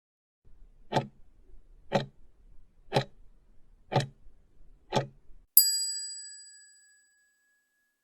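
Quiz countdown sound effect: five clock ticks, one each second, then a single bell ding that rings out and fades over about a second and a half, marking that the time to answer is up.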